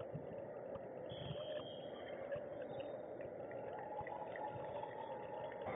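Steady background din of a large indoor volleyball hall: many distant voices of players and spectators blended into one murmur, with a few faint knocks.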